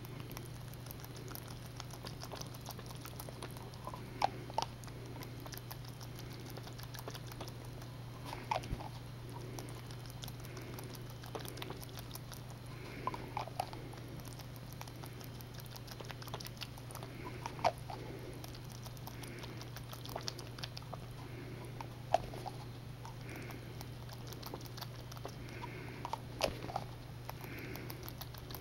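Young jackrabbit suckling milk from a feeding bottle's nipple: irregular small wet clicks and smacks of its mouth, over a steady low hum.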